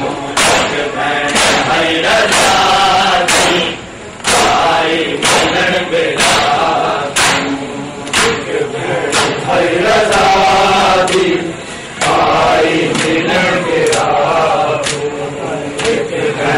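A group of men chanting a mourning lament together, with hands striking bare chests in unison about once a second (matam). The chant breaks briefly twice.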